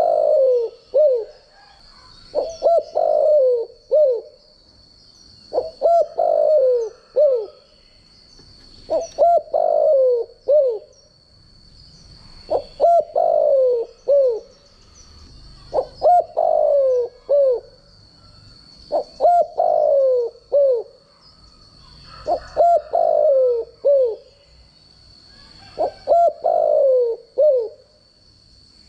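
Spotted dove cooing its song over and over: a phrase of several coos, each bending up then falling, repeated about every three seconds.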